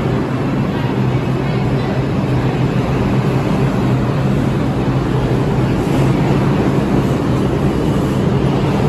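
R142 subway train running past a station platform: a loud, steady rumble and roar of wheels on rail, with a low steady hum underneath.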